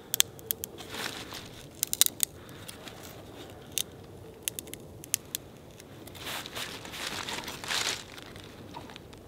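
Long thin wooden stick being split lengthwise by hand, its wood fibres crackling and tearing in a scatter of sharp clicks as the halves are pulled apart, with a longer tearing stretch a little past the middle.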